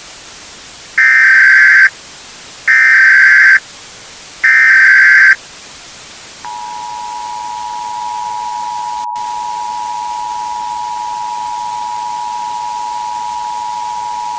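Emergency Alert System tones: three loud, roughly one-second bursts of screeching digital header data, evenly spaced, then the steady two-tone attention signal (853 and 960 Hz) starting about six and a half seconds in and holding on. A constant hiss runs underneath.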